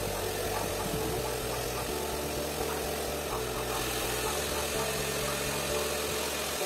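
Handheld hair dryer running steadily, blowing on wet hair.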